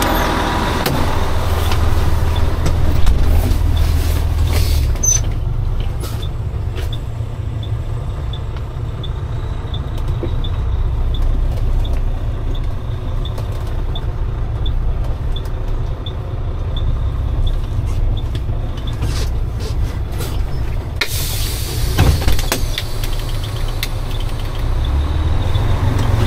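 Tow truck engine running low and steady as the truck pulls forward, with a faint regular ticking about twice a second through the middle part. A sudden rise in hiss comes near the end.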